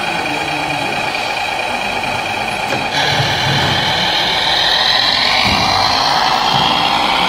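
Engine sound of a radio-controlled model Steyr 6300 tractor running steadily while it pulls a tipper trailer through sand. About three seconds in it grows louder, with a higher whine on top.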